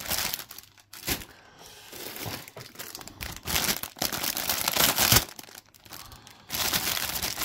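Clear plastic bag around a model kit's parts runner crinkling as it is handled, in several irregular rustling bursts, loudest about four to five seconds in.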